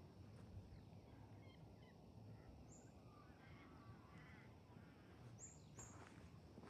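Near silence: faint outdoor ambience with a low steady rumble and a few quiet bird chirps and short trills scattered through it.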